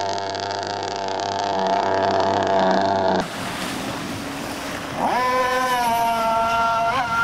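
A radio-controlled speed boat's motor running at high speed, a steady high-pitched whine. About three seconds in it gives way to surf and wind noise, and a second RC speed boat's motor winds up about five seconds in and holds a steady high whine, wavering near the end.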